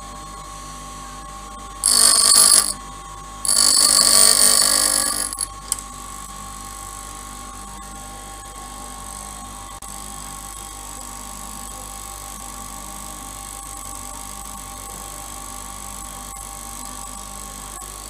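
Bench grinder motor running steadily with a constant whine. Twice, a twist drill held in a grinding jig is pressed against the grinding stone, giving a loud, high grinding hiss: a short pass about two seconds in, then a longer one of about two seconds.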